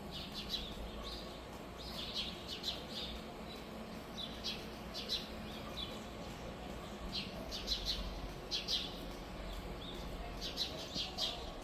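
Birds chirping: clusters of short, high notes repeated every second or two.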